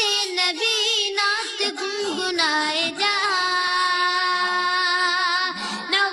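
Naat singing: a high voice sings a wordless, wavering melismatic line over a steady low drone, holding one long note in the middle for about two and a half seconds.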